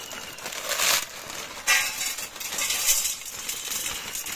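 Crinkling plastic packet of dry chowmein noodles being handled and tipped out, with the stiff dry noodles clattering into a stainless steel colander. It comes as a few short rustling bursts, the loudest about two and three seconds in.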